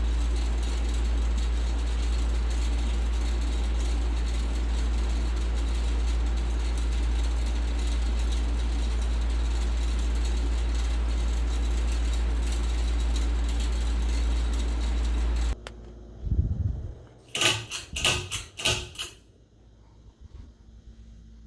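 Ceiling fan running with a steady low hum and rushing air. It cuts off suddenly about fifteen seconds in, followed by a quick run of five or so sharp clicks.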